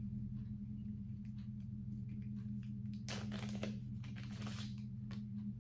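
Small clicks and rustling from hands sorting through jewelry pieces, with two louder crinkling rustles about three and four and a half seconds in, over a steady low electrical hum.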